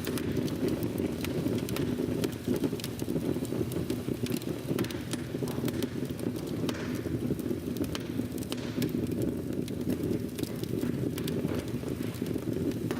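Large fire burning: a steady low rumble with frequent crackles and pops.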